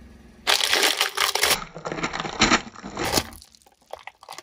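Brittle objects crushed under a car tyre: about half a second in, a dense run of crunching and cracking begins and lasts about three seconds, with the sharpest snaps in the middle and near the end, then thins to a few scattered cracks.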